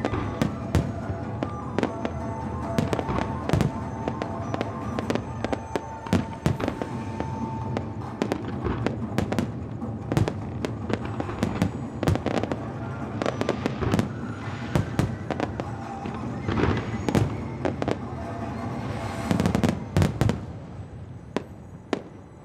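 Fireworks display: aerial shells bursting in a steady stream of bangs and crackles, with a dense flurry of loud bangs about nineteen seconds in before it tails off.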